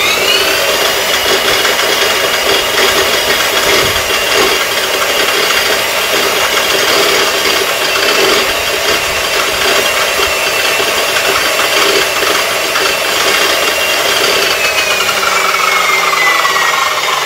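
KPT KC 355+ 14-inch abrasive cut-off saw running free with no load. Its motor holds a steady high whine at full speed, and near the end the pitch falls as it winds down. The machine is being checked for a reported fault: its cutting wheel vibrates badly when cutting.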